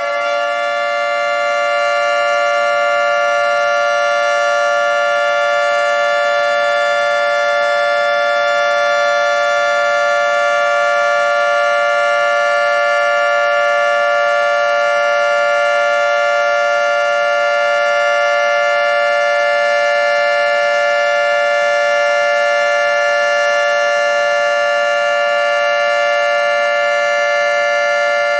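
Federal Signal 2T22 dual-tone outdoor warning siren sounding its steady alert tone at full speed: two close pitches held together as one steady, loud chord.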